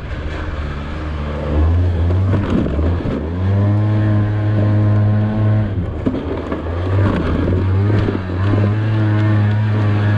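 Small scooter engine running under throttle, recorded onboard; its pitch drops and climbs back twice as the rider eases off and opens up again.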